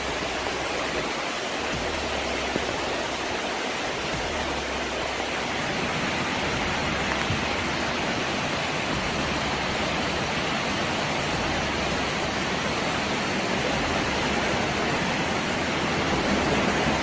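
Fast-flowing floodwater rushing steadily, an even, unbroken rush of water.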